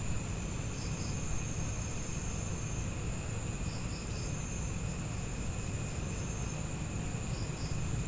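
Evening chorus of crickets and other insects: several steady, unbroken high trills, with a few short chirps now and then, over a low steady rumble.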